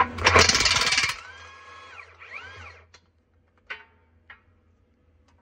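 Cordless impact wrench hammering on a wheel nut for about a second, then its motor whining as it spins without load, pitch rising and falling. A few sharp metallic clicks follow.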